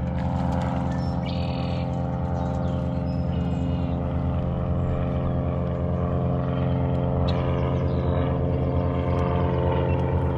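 Steady motor hum with an unchanging pitch, with a few short bird chirps over it.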